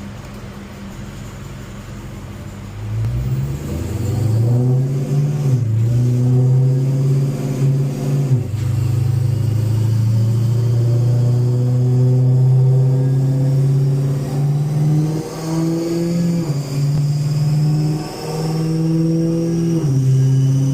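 Supercharged 6.2-litre Hemi V8 of a Dodge Hellcat fitted with a 3.8-litre Whipple supercharger, idling and then driven on a chassis dyno at part throttle: the revs climb about three seconds in and fall back with each gear change, several times over. A high whine climbs steadily with speed in the second half. This is a gentle warm-up drive to bring the coolant temperature up, not a power pull.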